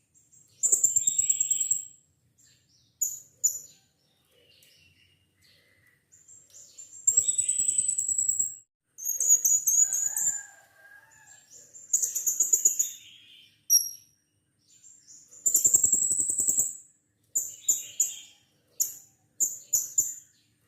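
Blue-crowned hanging parrot (serindit) giving shrill, high-pitched calls in bursts of a second or two with short pauses between them, ending in a run of short, quick calls.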